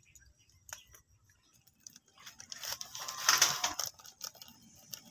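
A plastic spice shaker of dried basil leaves being shaken, a short rattling of the dry herb through the sifter holes about two seconds in, after a single light click; a few small clicks follow as the jar is handled.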